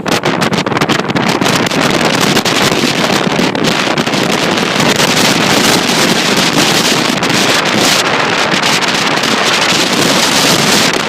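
Strong wind buffeting the microphone over the rush of ocean waves breaking on the shore, a loud steady roar whose hiss swells about a third of the way in.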